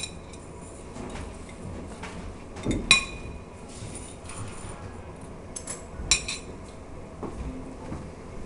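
Metal bar tongs and a knife clinking against a plate and a cocktail glass: a few sharp clinks, the loudest about three seconds in with a short ring.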